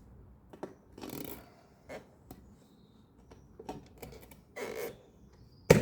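Tire-mounting work: a steel tire lever and plastic rim protectors click and scrape against the wheel rim as the bead of a new motorcycle tire is levered on. There are several short scrapes and clicks, and one sharp loud knock near the end.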